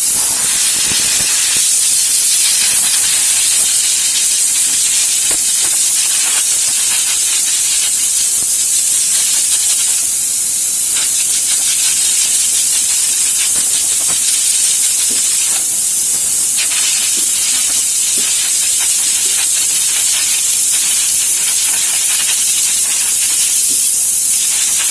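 Compressed air blowing with a loud, steady hiss through a car's AC cabin filter, blasting out the dust clogged in it.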